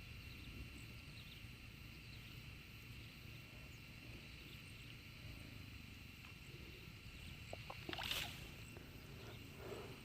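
Faint outdoor ambience: low wind rumble on the microphone under a steady high-pitched hum, with a brief rustle about eight seconds in.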